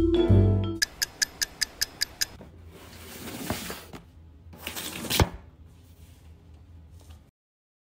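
Vibraphone music ends, then a quick run of about eight sharp ticks. A cardboard box is slid across a wooden floor, and a second cardboard box is set down with a sharp knock about five seconds in.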